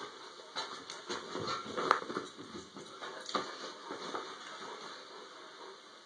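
A large dog moving about on a bed and nosing at the sleeper and the bedding: rustling, sniffing and a few sharp knocks, most of them in the first four seconds, then quieter.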